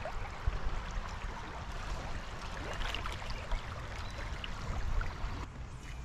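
River water running steadily over rocks and current, an even rushing hiss with a low rumble underneath.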